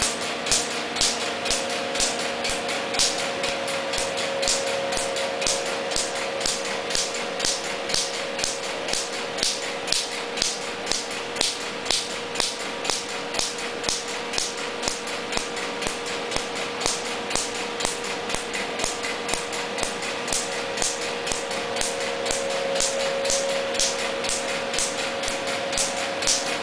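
Q-switched laser handpiece firing pulses onto tattooed skin, each pulse a sharp snapping click, repeating evenly about two to three times a second over a steady hum.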